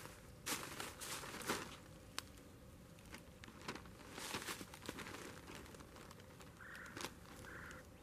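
Faint crinkling and rustling of a large plastic bag being handled, in irregular bursts, with some rustling in dry leaf litter underfoot.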